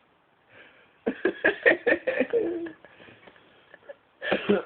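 A person laughing in a quick run of bursts for about a second and a half, then a single short, loud vocal burst near the end.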